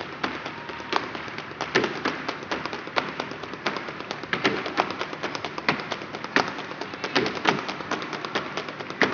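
Flamenco palmas: a group of people clapping their hands in a quick, accented rhythm, with sharp claps several times a second and some louder than the rest.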